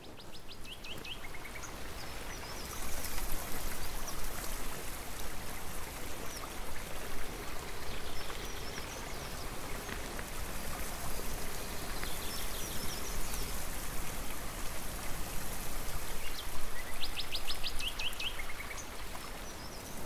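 Shallow river running over stones, a steady rush of water that comes in about three seconds in. A songbird sings over it, a quick run of high notes dropping lower at the end, once at the start and again near the end.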